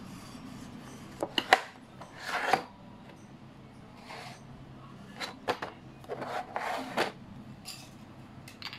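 Plastic case and chrome sockets of a 1/2-inch socket set being handled: a few sharp clicks and short scraping rubs in scattered bursts, the loudest click about one and a half seconds in.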